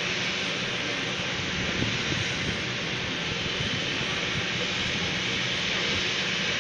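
Embraer regional jet's turbofan engines idling: a steady, even rush with no rise or fall in pitch.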